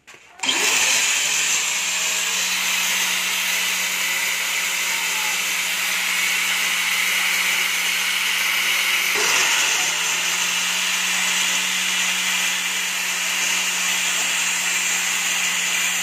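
Handheld electric angle grinder with a flap disc grinding metal, throwing sparks, to ease the tight fit of a three-wheeler clutch part so its bearing sits loosely. The motor comes up to speed about half a second in and runs with a steady hum and hiss, with a brief dip around nine seconds.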